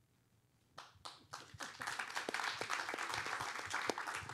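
Audience applause: after a short silence, scattered claps start about a second in and quickly build into steady clapping from many hands.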